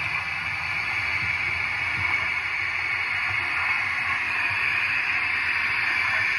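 Model steam locomotive and its coaches running along the layout's track: a steady hissing rumble of wheels and motor that grows a little louder.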